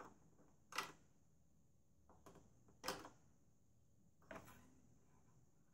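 Three short clicks with smaller ones between, a second or two apart, from the plastic dipstick cap being worked in the oil-fill tube of a Briggs & Stratton 6.5 HP lawn mower engine while the oil level is checked.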